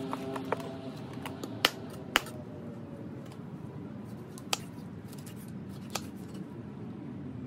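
A few sharp, isolated clicks and snips of kitchen utensils over a low, steady background noise. Everything cuts off abruptly at the very end.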